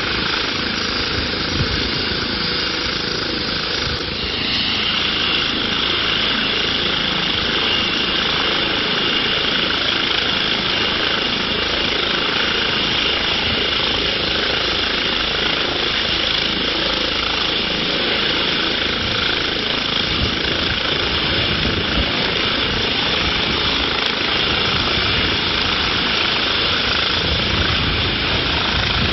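Eurocopter EC135 air ambulance helicopter hovering and coming down to land. Its rotor and turbine noise is loud and steady, and a high whine comes in about four seconds in and holds.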